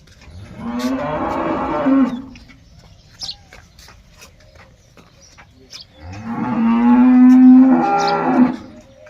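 Buffalo lowing twice: two long calls a few seconds apart, the second longer and louder than the first.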